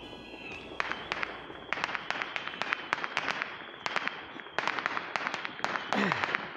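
Distant fireworks and firecrackers going off: a rapid crackle of sharp pops in bursts, starting about a second in, easing briefly, then picking up again.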